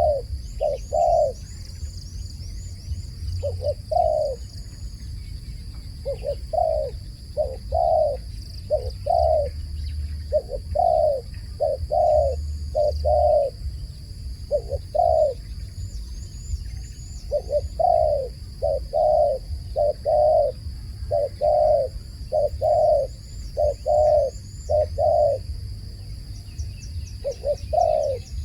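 A dove cooing over and over: short low coos in quick runs of two to four, separated by brief pauses. Faint high chirps of small birds sound now and then behind it.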